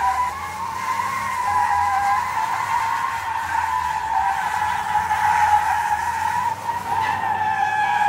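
A large SUV's tyres squealing steadily as it slides in circles on wet asphalt, one high wavering squeal that barely lets up, with the engine running low underneath.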